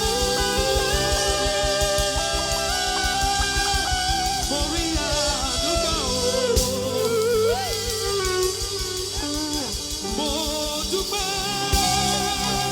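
Live band music with guitar over a steady drum beat and a wavering melodic line; the drums drop out about halfway through and come back in near the end.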